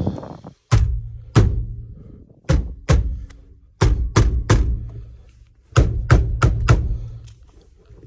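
About a dozen heavy thuds in bursts of two to four, each leaving a short low boom, as a Jeep Wrangler's steering wheel is banged to knock it off the steering column splines without a puller; the wheel stays stuck.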